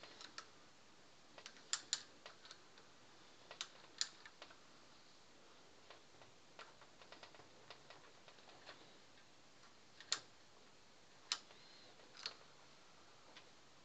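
Sharp metal clicks from a homemade screw jack's ratchet as its welded handle is swung by hand. There are about eight clicks at uneven intervals, a couple of them in quick pairs.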